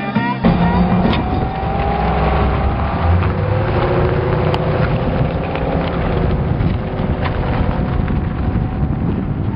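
Corvette V8 engines and exhausts running as the cars drive past, an engine note falling slowly over a few seconds, with wind buffeting the microphone.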